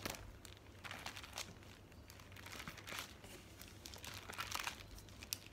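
Faint, on-and-off crinkling and rustling of plastic packaging as stencil packs are handled.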